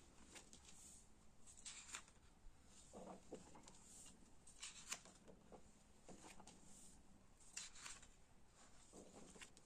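Paper pages of a drawing book being turned by hand: several faint, brief papery swishes, one every second or two.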